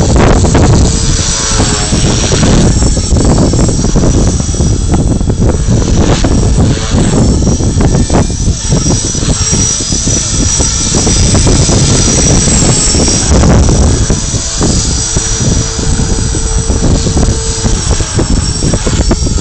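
Align T-Rex 450 Pro electric RC helicopter flying aerobatic 3D manoeuvres: a high motor-and-rotor whine that shifts a little as it moves. Strong wind rumbles on the microphone.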